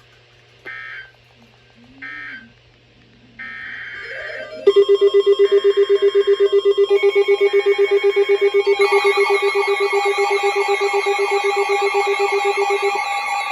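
Emergency Alert System data bursts: three short bursts and then a longer one, the end-of-message code of one alert and the header of the next. About five seconds in, a loud, rapidly pulsing alert tone starts, and from about nine seconds several more steady tones and a warbling high tone pile up on it as the next alert's alarm sounds.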